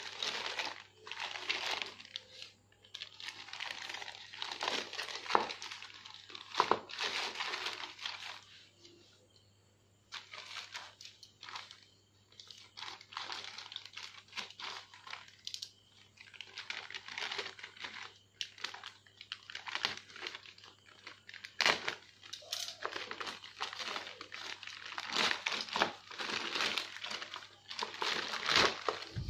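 Plastic courier mailer bag crinkling as it is handled and torn open, in irregular rustling bursts with short pauses and a few sharp clicks.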